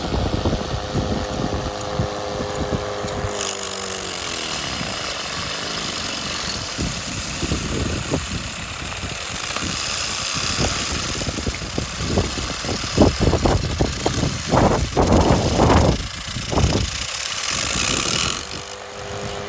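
Homemade electric lawnmower: a Razor scooter motor spinning a wooden model-airplane propeller as the cutting blade. It runs with a steady whine that drops in pitch about three seconds in, and then becomes a loud, rough whirring hiss as it cuts grass, with a flurry of knocks and clatters in the second half. Near the end the whine returns at its higher pitch.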